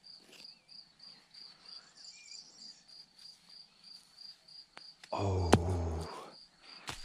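A cricket chirping steadily in a high, even pulse, about three chirps a second. About five seconds in, a louder low sound lasting about a second cuts in, with a sharp click in the middle.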